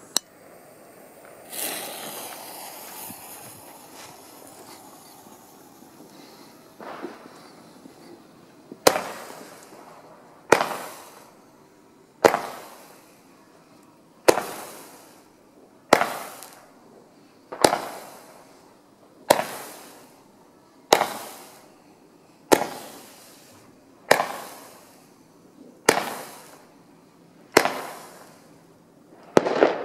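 Nico Cosmic Stars comet battery firing its comets one at a time, about a dozen shots roughly every 1.7 seconds, each a sharp bang followed by a fading hiss as the tailed comet climbs. The first shot comes about nine seconds in.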